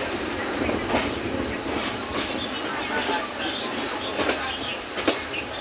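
Indian Railways passenger coach running along the track, heard from inside at the window: a steady rumble and rattle, with a few sharp clacks as the wheels cross rail joints.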